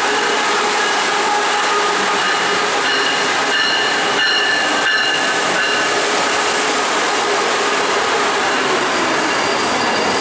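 Brightline Siemens Charger diesel-electric locomotive running alongside, a loud steady drone of engine and equipment noise with several steady whining tones held throughout.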